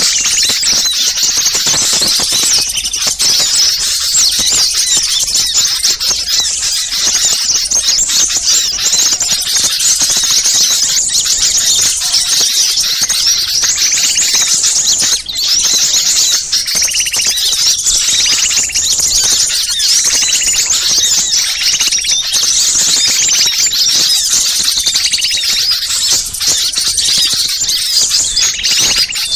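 Many small songbirds calling together in a dense, unbroken, high-pitched chatter: a noisy bird-lure recording meant to draw wild small birds in. Lower repeated notes join the chatter through the middle stretch.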